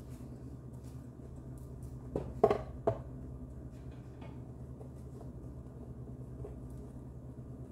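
Dishes clattering: a plate knocks against a bowl twice in quick succession about two and a half seconds in. Light rustling of rolled oats follows as a patty is pressed into them, over a steady low hum.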